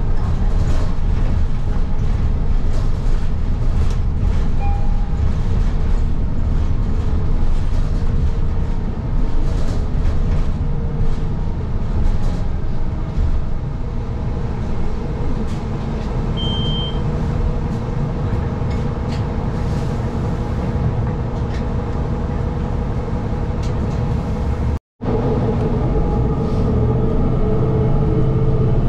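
Inside a moving TTC city bus: steady low rumble of the engine and road with frequent rattles and knocks from the cabin. Two short faint beeps stand out, and the sound cuts out completely for a split second near the end.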